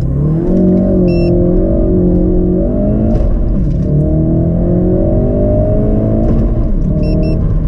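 Ford Focus RS's turbocharged 2.3-litre four-cylinder with an aftermarket intake, heard from inside the cabin at full throttle in a 0–100 km/h run. The engine revs climb, and the pitch falls back at each of two upshifts.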